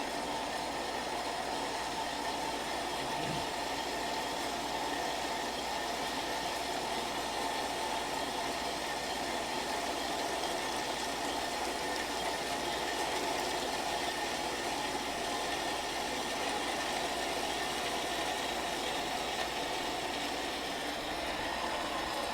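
A steady mechanical running noise, an even hum and whir with no rhythm or change in pitch.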